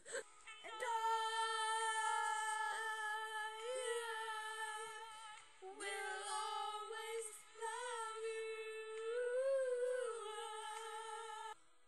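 A girl singing a cappella, holding one long high note on "I" with a slight waver, breaking off briefly twice and stopping sharply near the end.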